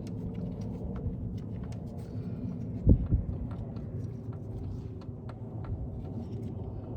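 Scattered light clicks and taps of hand tools on engine parts over a steady low rumble, with one dull thump about three seconds in.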